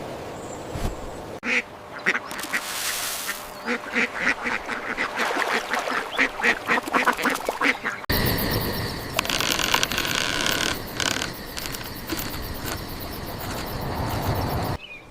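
Ducks quacking in a rapid run of short calls, with an abrupt change about eight seconds in to a denser, busier stretch of sound.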